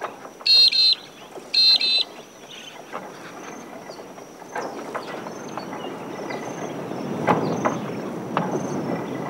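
Magpie-lark (peewee) giving two loud calls about a second apart, then an outback windmill turning, its noise swelling with occasional clanks over a thin steady high whine.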